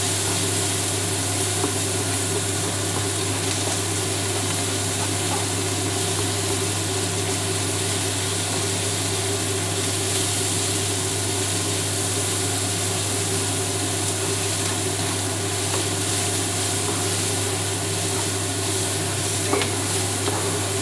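Chopped onion and green pepper sizzling in olive oil in a frying pan, being softened for a sofrito and stirred now and then with a slotted spatula, over the steady hum and rush of a Teka kitchen range hood fan.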